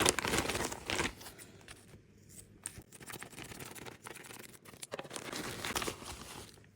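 Paper and plastic packaging rustling and crinkling as a small parcel is unwrapped by hand, in two busy spells: one at the start and another about five seconds in.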